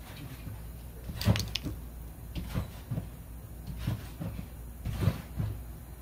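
Thread seal tape being wrapped around a small threaded air fitting by hand: irregular soft clicks, rustles and knocks from the handling, the loudest about a second in. A low steady hum runs underneath.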